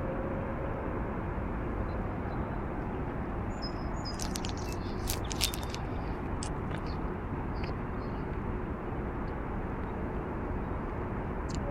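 Steady rumble of distant highway traffic, with a few short bird chirps in the middle and one near the end. The low bottle-like hum tones are faint and fade within the first second.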